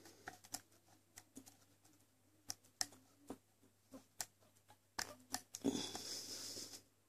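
Faint, scattered clicks and ticks of a lock pick working the pins of a seven-pin ASSA lock under light tension, the lock sitting in a false set. A short hiss lasting about a second comes about five and a half seconds in.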